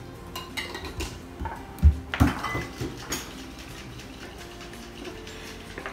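Homemade stir-fry sauce being shaken in a lidded glass jar: a run of knocks and rattles, the loudest two close together about two seconds in, then quieter.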